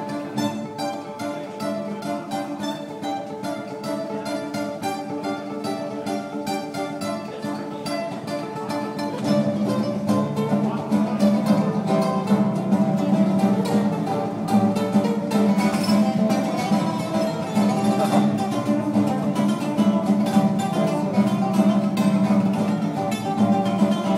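Acoustic guitar fingerpicked solo, a fast run of plucked notes. About nine seconds in it gets louder, with stronger low notes under the melody.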